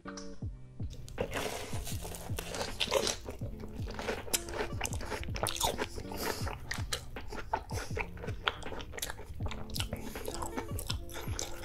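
Close-miked crunching and chewing of a crumb-coated, deep-fried corn dog dipped in cheese sauce, the crisp crust crackling with each bite, starting about a second in. Background music plays underneath.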